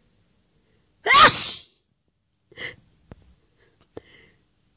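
A person's loud sneeze, one sharp burst about a second in, set off by sniffing flowers. A short, much quieter sound follows a second and a half later, and there are a couple of faint clicks near the end.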